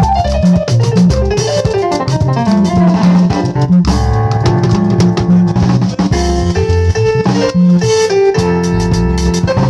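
Music with guitar, bass and drums: a run of notes falls steadily in pitch over the first three seconds, then the band settles into a steady groove over the beat.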